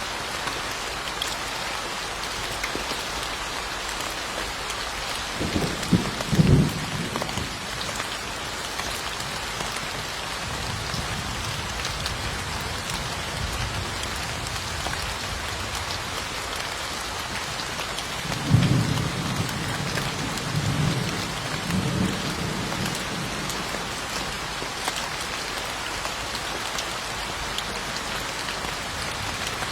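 Steady rain hissing, with two low rolls of thunder: a short one about six seconds in and a longer rumble that swells several times later on.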